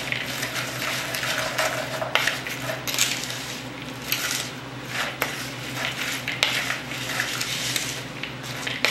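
A spoon stirring a dry mix of cinnamon sugar, raisins and chopped walnuts in a mixing bowl: uneven scraping and rustling, with a few sharp clicks of the spoon against the bowl.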